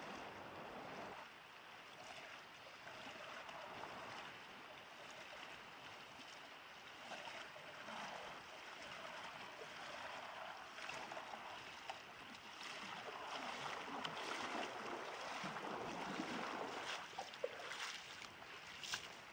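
Faint sloshing and splashing of a person wading through a shallow river, over the river's steady flow. The splashing steps get louder near the end as the wader comes out at the bank.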